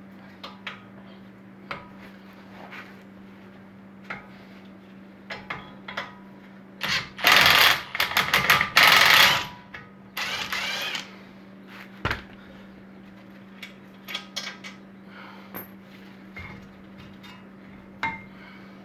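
Ryobi cordless impact wrench hammering bolts loose, in a long burst about seven seconds in and a shorter one about ten seconds in, with scattered clinks of tools and parts around them.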